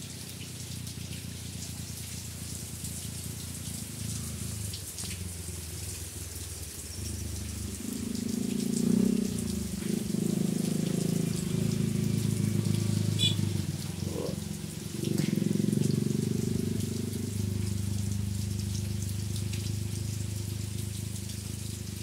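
Steady rain falling and pattering on wet ground. A louder low rumble swells from about a third of the way in and fades near the end.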